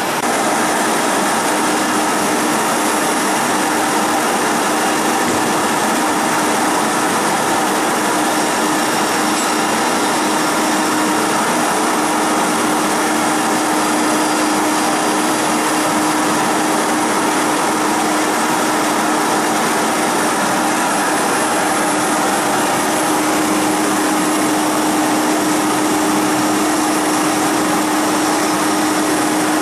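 CNC router's HSD spindle running at steady speed with a steady mid-pitched whine, its V-bit engraving lines into a wooden board, over a steady broad machine noise.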